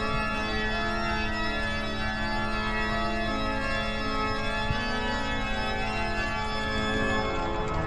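Organ music: long, sustained chords held steadily, with a change in the sound shortly before the end.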